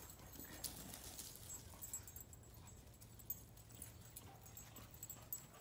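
Near silence: faint outdoor background with a low steady rumble and a few soft scattered taps.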